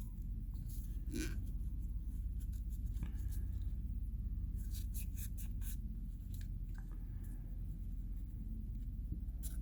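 Cleaning patch rubbing and scraping through a 9mm pistol's parts, with a few light clicks of handling, over a steady low hum.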